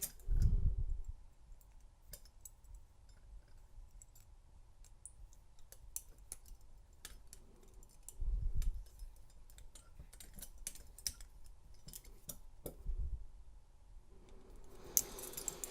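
Small, irregular metal clicks and scrapes of a pick bent from a key ring working inside a double-locked handcuff's keyhole, broken by three dull handling thumps.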